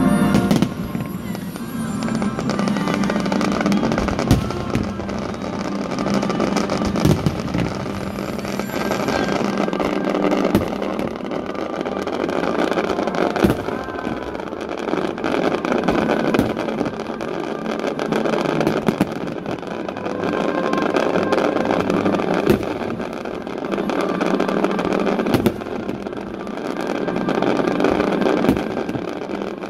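Fireworks going off in an irregular string of sharp bangs over a continuous dense rumble and crackle, with music playing along.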